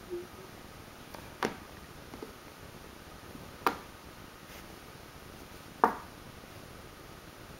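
A Japanese Spitz's leg kicking against a hardwood floor: three sharp knocks about two seconds apart, the last the loudest.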